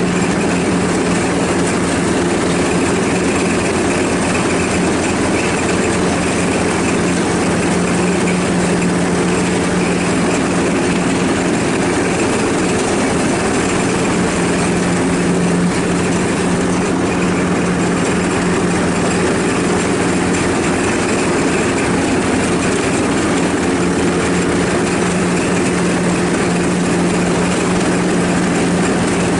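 Ride-on lawnmower's engine running at a steady, unchanging speed.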